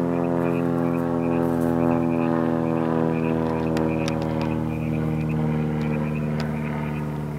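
Car engine idling close by, a steady hum with an even stack of tones that eases slightly near the end. A few sharp clicks of a camera shutter cut in around the middle.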